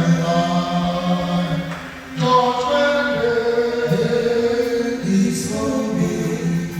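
Choir or congregation singing a gospel song together in held notes.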